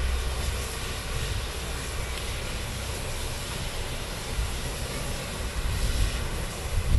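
Peppercorn A1 Pacific steam locomotive 60163 Tornado hissing steam, a steady hiss that grows a little stronger near the end.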